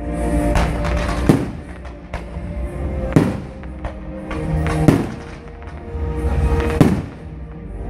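Fireworks going off: about five sharp bangs a second or two apart, over music.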